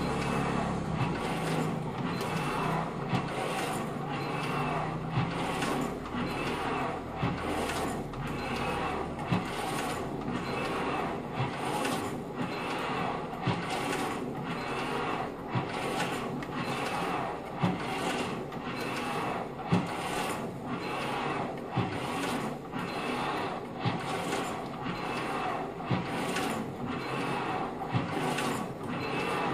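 Kayak paddling ergometer worked at a hard, steady stroke rate: a rhythmic whoosh from the resistance flywheel and cable with each paddle stroke, more than one a second, with a sharper click about every two seconds.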